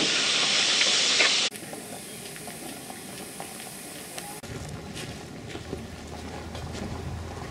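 Steam train pulling away with a loud hiss of steam and a few wheel clicks, which cuts off abruptly about a second and a half in. Quieter open-air background with scattered ticks follows, and a low steady hum comes in near the middle.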